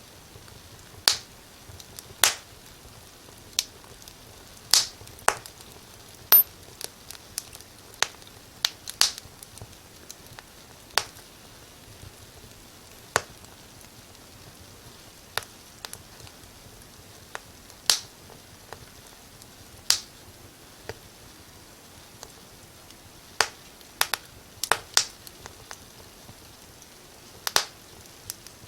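Burning firewood crackling in a fireplace: sharp, irregular pops and snaps, some loud and many small, over a faint steady hiss of the fire.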